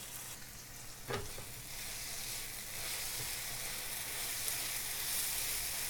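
Onion-tomato masala sizzling in oil on a hot non-stick tawa, with a single light knock about a second in. The sizzle grows a little louder from about two seconds in.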